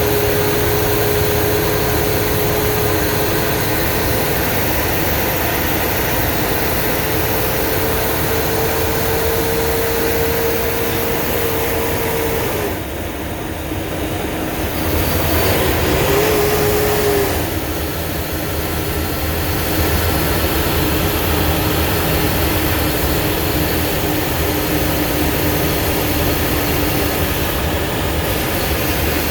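Blue Bird school bus under way: steady engine and road noise with a whine that comes and goes. The noise dips briefly about halfway through, then picks up again.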